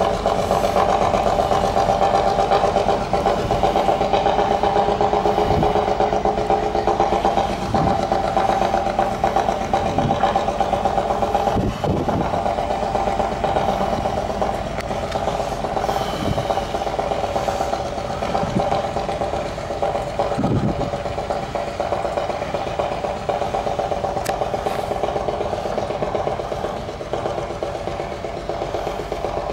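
Engine of a small diesel shunting tractor running steadily as it moves a rake of old wooden passenger coaches. A few short knocks from the wheels and couplings come through at intervals.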